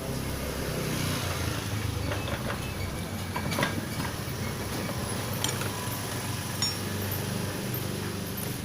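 Metal tools and transmission parts clinking and tapping now and then, over a steady low engine hum.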